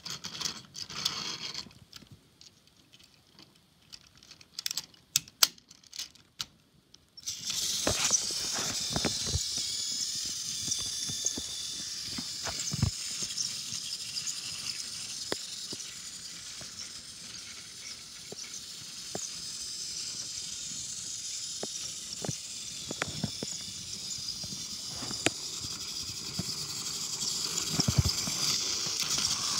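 A few handling clicks, then about seven seconds in a battery-powered toy train engine's small electric motor starts suddenly and runs with a steady high whir. Clicks come now and then as it rolls along plastic track pulling coaches.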